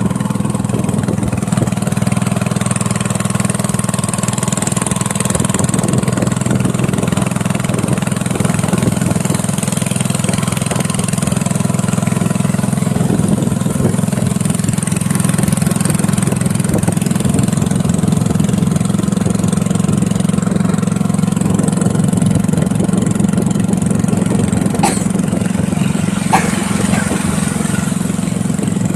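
A small engine running steadily at an even speed, with two short ticks near the end.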